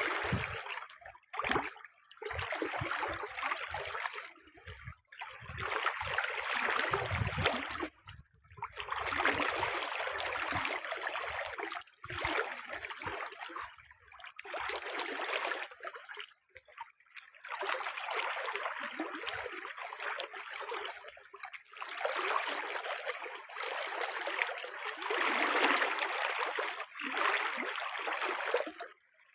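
Running water, a steady rushing broken by brief drop-outs every few seconds.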